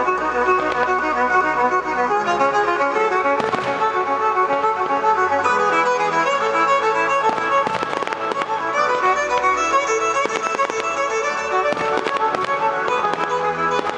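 Violin-led music playing steadily, with the sharp cracks and bangs of fireworks bursting through it several times.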